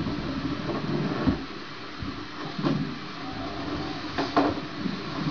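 Rubber balloons being handled, rubbing and bumping against hands and each other, with a few sharp knocks, two close together near the end.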